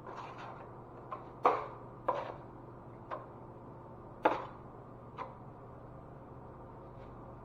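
Six sharp taps and clacks at uneven intervals, three of them much louder, of hard tools being knocked or set down, over a faint steady hum.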